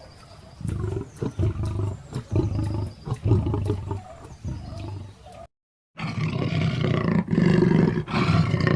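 A big cat roaring in a series of repeated calls. There is a brief dead-silent gap about five and a half seconds in, then a second, louder stretch of roaring.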